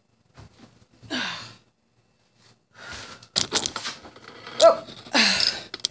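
A person's breathy vocal sounds, sighs or gasps with falling pitch, mixed with a run of sharp knocks and clatter from the second half on, as cabinet and countertop pieces are handled during demolition.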